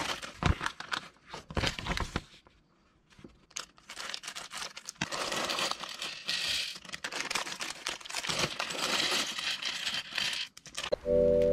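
Thin plastic parts bags crinkling and tearing open, with small plastic building bricks spilling and clicking onto a wooden desk; a short lull comes about two and a half seconds in. A mallet-percussion music jingle starts just before the end.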